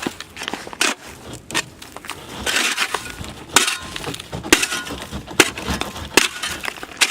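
Small snow shovel chipping and scraping at solid ice: sharp cracking strikes about once a second, with a longer scrape partway through.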